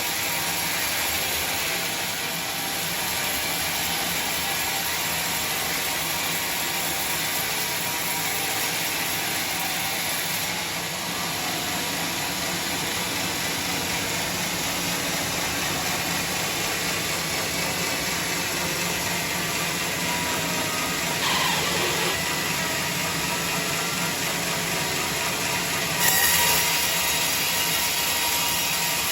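Sawmill machinery running with a steady mechanical din, with a short falling whine a little past two-thirds of the way through and a step up in loudness near the end.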